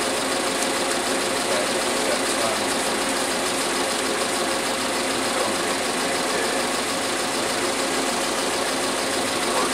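A vehicle engine idling steadily, an even hum that holds the same pitch and level throughout.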